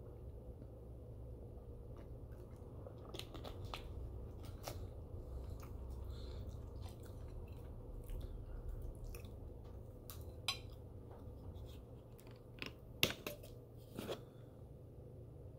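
Close-miked chewing and crunching of crisp turkey bacon, with scattered sharp clicks and a few louder clinks near the end, a fork against the plate.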